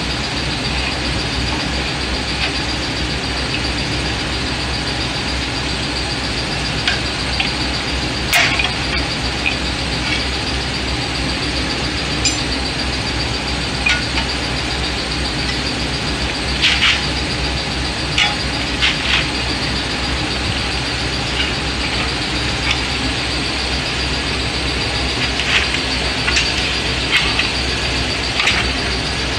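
Scattered metal clicks and clinks of hand tools working at a disc brake rotor and caliper, over a steady background hum.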